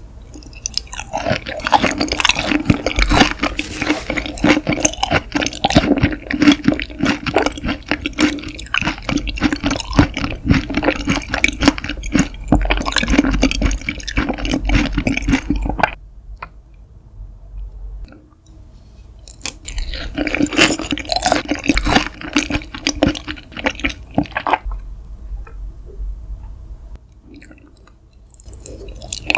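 Close, wet chewing and squelching of raw seafood (mackerel sashimi and octopus), a dense run of sticky smacks and clicks. It stops for a few seconds twice and starts again near the end.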